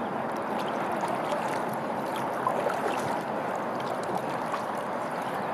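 Steady rush and gurgle of water along a kayak's hull as it glides.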